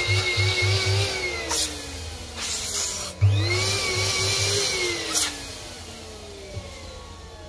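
Electric balloon inflator blowing air into latex balloons in two bursts: the first cuts off about a second and a half in, and the second starts about three seconds in and runs for about two seconds. Each time the motor's whine falls away slowly as it spins down.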